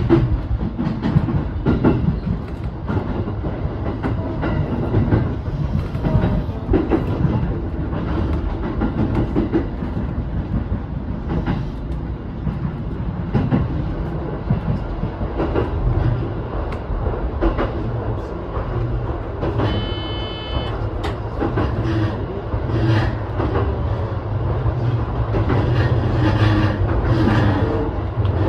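JR East E233 series 7000 electric train running at speed, wheels on the rails with irregular clicking from rail joints. About two-thirds of the way through, a brief high-pitched tone sounds for about a second.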